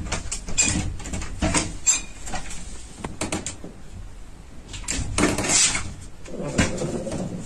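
A cabinet door knocking and rattling, about half a dozen separate bangs and scrapes.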